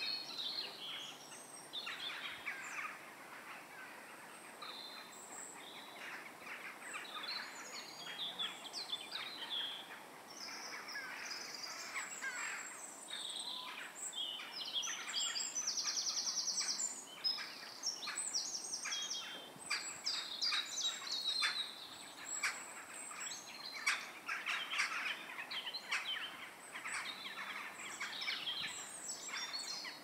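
Dusk chorus of many songbirds calling and singing over one another, with a loud, fast trill a little past halfway through.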